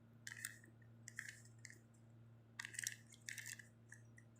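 Faint plastic clicking and clacking of a Rubik's cube's layers being turned, in several short clusters.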